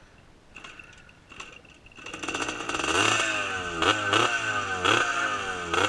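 Motorcycle engine that comes in about two seconds in and is revved in repeated short throttle blips, the pitch jumping up and falling away each time.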